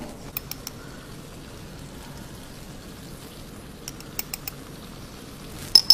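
Coconut-milk prawn curry simmering in a pot with a steady soft bubbling. A few sharp clicks of a metal spoon against the pot sound through it, the loudest with a short ring near the end.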